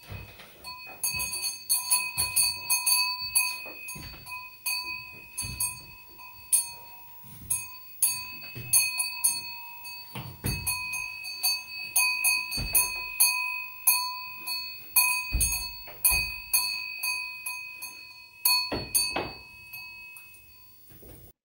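A cowbell clanking irregularly as it swings from the neck of a two-person pantomime cow costume, each strike ringing on with a steady tone. There are occasional dull thuds among the strikes, and the ringing fades out near the end.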